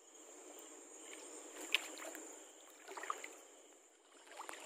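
Shallow river water sloshing softly in a few slow swells as someone wades and moves hands through it among rocks, with a light click near two seconds in.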